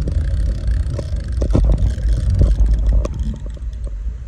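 Low rumble of wind and handling noise on a phone microphone, with irregular clicks and scrapes as the rod and reel are worked against a hooked carp.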